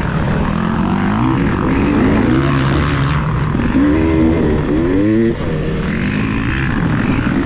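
ATV (quad bike) engines running and revving, their pitch rising and falling several times.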